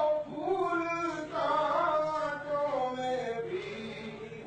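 A man's voice chanting naat in a melodic, drawn-out style, holding long notes that slide slowly in pitch.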